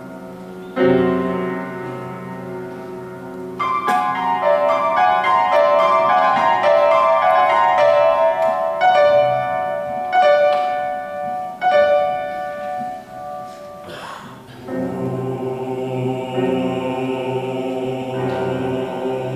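A grand piano strikes a low chord that rings and fades, then plays a run of higher notes with several accented strikes. About fifteen seconds in, a male vocal ensemble comes in with a steady, sustained low chord.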